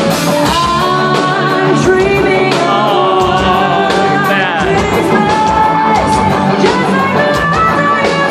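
Live band playing a song with a lead vocalist singing over amplified guitar and drums. The low bass drops away for the first few seconds and comes back in about halfway through.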